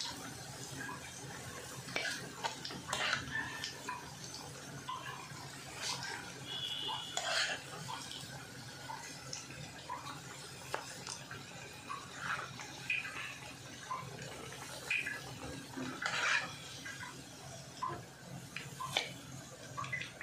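Battered cauliflower pieces deep-frying in hot oil in a kadai, a steady sizzle, with scattered clinks and taps of a steel slotted spoon against the pan as the fried pieces are scooped out.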